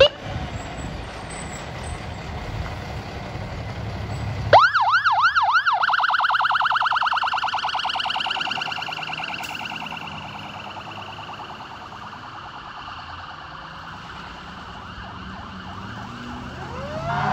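Fire engine pulling out with its engine rumbling; about four and a half seconds in, its siren starts with about a second and a half of quick rapid sweeps, then goes into a long, slowly falling wail that fades as the truck drives off. Near the end a new wail begins to rise.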